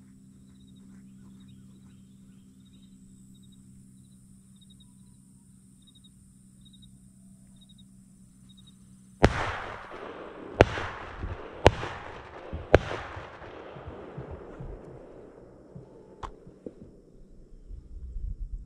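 Four shotgun blasts about a second apart, each echoing and dying away slowly. Before them there are nine seconds of a vehicle engine's steady low hum.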